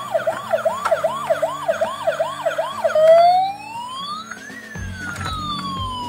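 Toy ambulance's electronic siren sounding. For about three seconds it gives a fast yelp, rising sweeps repeating about two and a half times a second. It then switches to a slow wail that rises and falls once.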